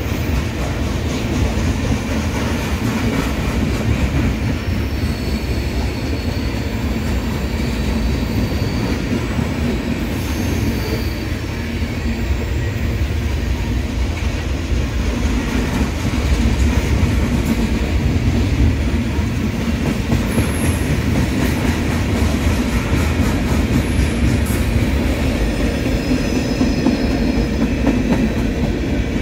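Freight cars of a passing train rolling by at close range: a steady rumble with the clickety-clack of wheels over rail joints. Faint high wheel squeals come and go a few times.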